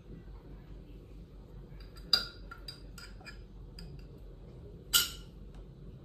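Small hard clinks from handling at a kitchen countertop while umeboshi plums are pitted by hand. There are two sharp clinks, about two and five seconds in, with a few lighter ticks between them.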